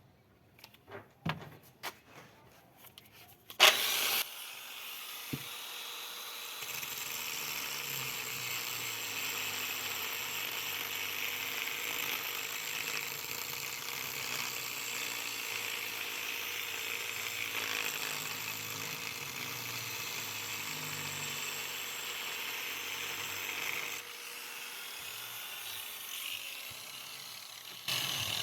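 Angle grinder running steadily with a high motor whine, grinding stone. Before it starts there are a few clicks and one sharp knock; the grinding eases about 24 s in and picks up again near the end.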